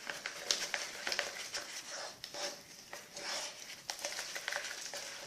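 Sticky slime being mixed and kneaded by hand, giving a stream of irregular wet clicks and crackles.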